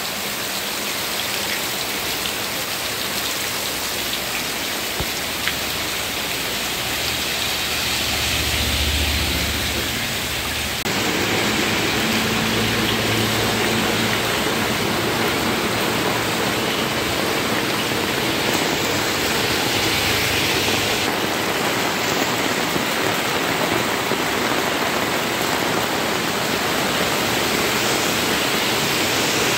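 Heavy rain pouring down steadily onto the road and standing water, a loud even hiss. Now and then a car drives through the water on the flooded road, adding a low rumble.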